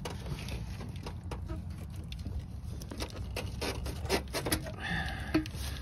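Scattered faint clicks and rubbing as hands work a rubber radiator hose and its clamp onto the radiator outlet among the engine-bay hoses, over a low steady hum.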